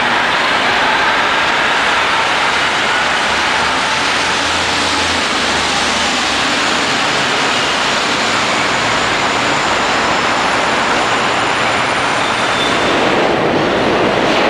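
City buses running on wet pavement, a steady mix of engine and tyre noise. Near the end this gives way to the rumble of a subway train approaching the platform.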